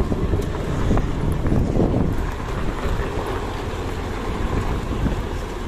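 Diesel engine of a Nissan Diesel CWB370 dump truck running steadily at low speed.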